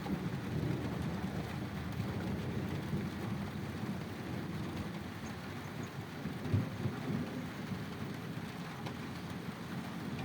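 Steady rain falling, heard as an even low rushing noise, with one low thump about six and a half seconds in.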